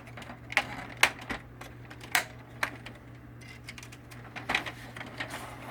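Irregular sharp plastic clicks and knocks as the printer's fan bracket is lined up on its three clips and pushed back into place, with a small cluster of clicks about four and a half seconds in.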